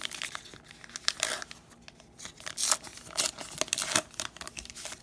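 A baseball card pack's wrapper being torn open and crinkled by hand, in irregular rustles with sharp crackles, the loudest spread through the middle and later part.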